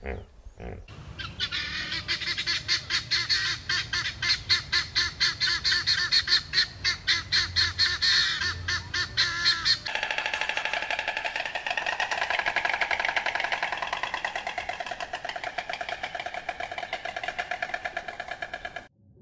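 Bird calls in a fast, evenly repeated series of honking notes, about three a second, changing abruptly about ten seconds in to a denser, quicker series.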